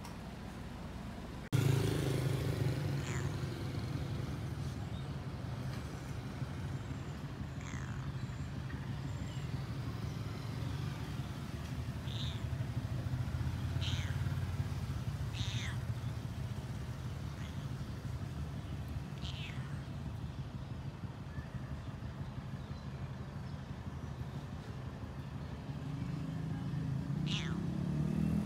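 Stray cat meowing now and then in short high calls, over a steady low rumble of motor traffic.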